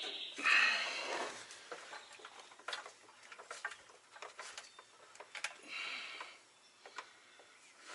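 Scattered clicks and light knocks of tools and metal parts being handled while a heavy truck transmission is positioned for installation, with a short noisy burst about half a second in, the loudest sound, and a weaker one near six seconds.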